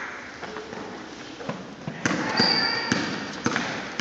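Basketball being dribbled on a wooden gym floor: sharp bounces at uneven spacing, ringing in the large hall, with one brief high squeak a little past halfway.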